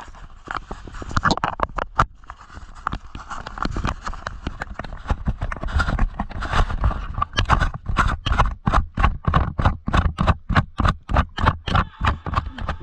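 Footsteps, irregular at first, then quickening about halfway through into a steady run of about four steps a second.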